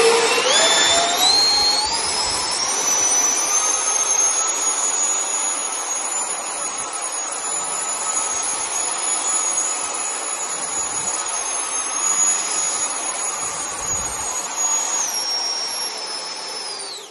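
Electric ducted fans of an RC Harrier model spooling up to a loud, steady high-pitched whine as they lift the model off a workbench in a vertical hop. The pitch steps down twice near the end.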